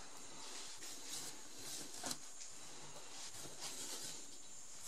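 Faint steady hiss with a few light scratching strokes, a fingertip drawing lines through the fine sandblast dust on a panel.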